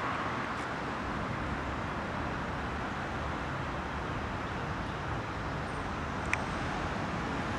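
Steady wash of distant road traffic, with one faint click near the end.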